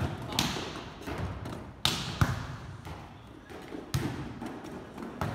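Volleyballs smacked by hands and bouncing on a sport-court floor: about six sharp hits, several in quick pairs, each trailing off in the echo of a large hall.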